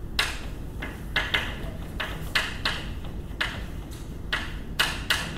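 Chalk writing on a blackboard: a quick, irregular run of short taps and scratches as each symbol is written, over a steady low room hum.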